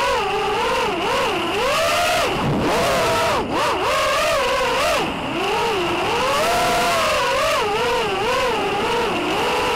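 FPV racing quadcopter's electric motors and propellers whining, the pitch constantly rising and falling with the throttle. It drops low briefly about two and a half seconds in.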